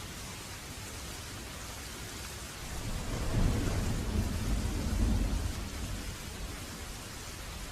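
Steady rain with a roll of thunder: the low rumble builds about three seconds in, stays loud for a couple of seconds, then fades back under the rain.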